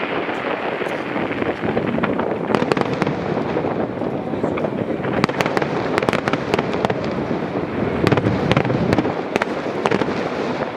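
Fireworks display going off: a dense, continuous rumble of bursts with many sharp crackles layered on top, the crackling growing thicker about two seconds in.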